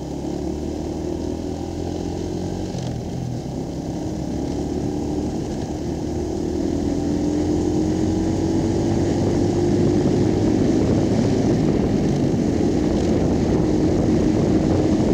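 Motorcycle engine running as the bike gradually speeds up: its tone rises slowly and it grows steadily louder, over a rush of wind and road noise.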